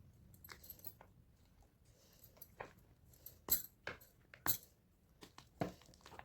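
Blocks of gym chalk being crushed, a string of irregular sharp crunches and cracks. The loudest come about three and a half and four and a half seconds in.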